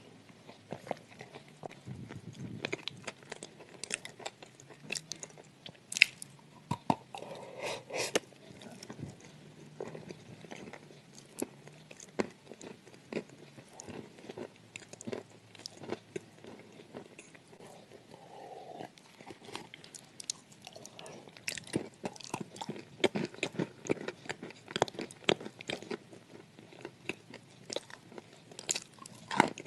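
Sand clay being bitten and chewed, with many sharp crunches and crackles between quieter chewing; the loudest crunch comes about six seconds in.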